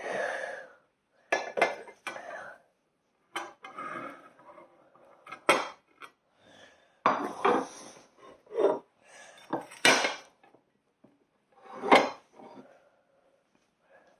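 Plates and cutlery being handled in a kitchen: a string of irregular clatters and clinks, a dozen or so separate knocks of dishes being set down and moved.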